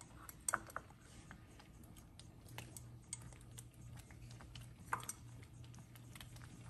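Faint, scattered clicks and light taps from a wooden spoon and fingers handling cheese slices in a pot of cooked cornmeal, with a couple of sharper taps about half a second and about five seconds in, over a steady low hum.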